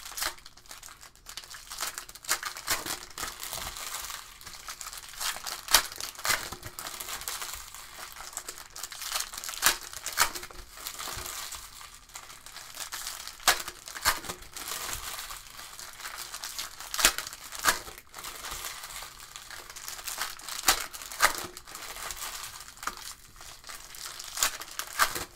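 Shiny trading-card pack wrappers crinkling and tearing as packs of Select Soccer cards are handled and opened by hand, with irregular sharp snaps among the crackle.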